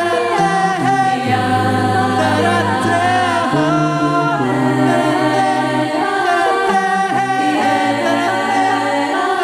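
An a cappella vocal group singing, several voice parts over a bass line of long held notes that step to a new pitch every second or two, with no instruments.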